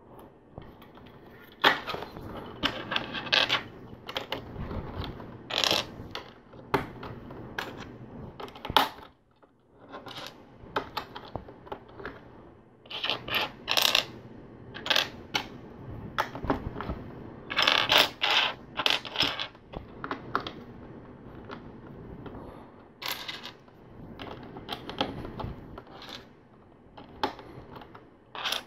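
LEGO bricks clicking and clattering in irregular bursts: loose plastic pieces being picked through on a tabletop and pressed together.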